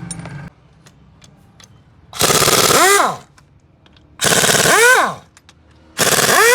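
Pneumatic impact wrench, probably on the engine's bolts, firing in three rattling bursts of about a second each; each burst ends with the air motor winding down in a falling whine.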